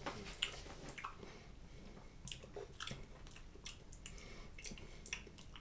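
Faint wet mouth clicks and lip smacks, a scatter of short ticks, from someone working a sip of whisky around the mouth while tasting it.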